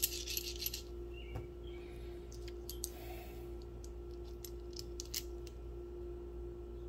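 Metal 7.62×39 rifle cartridges clinking against each other in a hand: a short rattle at the start, then scattered light clicks as single rounds are picked out.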